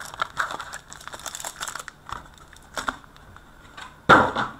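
Foil wrappers of 2015-16 Upper Deck Portfolio hockey card packs crinkling and rustling as the packs are handled and laid down on a stack, with scattered light ticks. A louder crinkle comes near the end.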